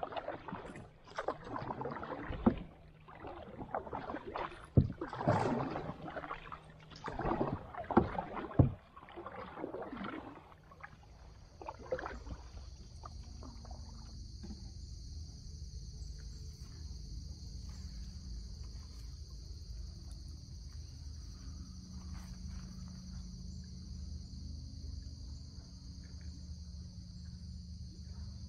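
Loud, irregular knocks and scrapes for about the first ten seconds, then a steady high insect chorus over a low rumble.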